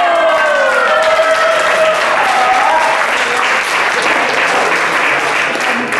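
A room full of people applauding, steady clapping throughout. For the first two to three seconds a drawn-out, gliding voice rises over the clapping.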